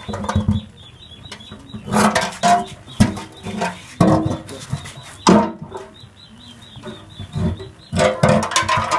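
Empty sheet-metal motorcycle fuel tank being tipped and shaken, knocking and clattering several times against the concrete floor, with small birds chirping faintly in the background.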